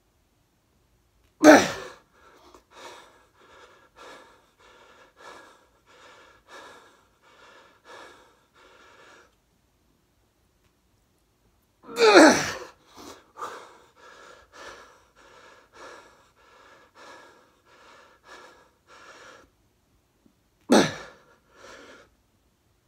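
A man breathing hard through a fast set of push-ups, with short rhythmic breaths about three every two seconds in time with the reps. Three loud gasping breaths stand out: one about a second and a half in, one midway that falls in pitch after a brief pause, and one near the end.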